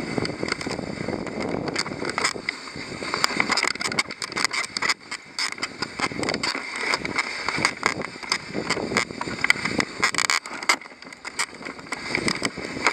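Dog sled running over a packed snow trail: a steady scraping noise of the runners on snow, broken by many sharp clicks and knocks from the sled over the bumps of the trail.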